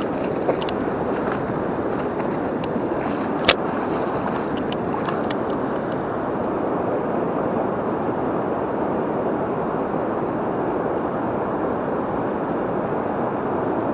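River current rushing over shallow rocks: a steady wash of water, with a single sharp click a few seconds in.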